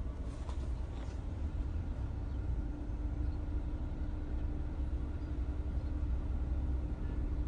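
2018 Mitsubishi Eclipse Cross idling with the air conditioning running: a steady low rumble, joined about two and a half seconds in by a steady higher hum. At idle with the A/C on, the owner hears an intermittent noise of unknown origin that he likens to the rubbing of old brakes.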